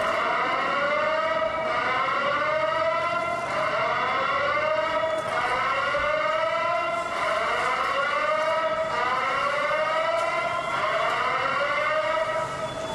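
Alarm sounding a slow whoop: a pitched tone that rises and then starts over about every two seconds, repeating seven times.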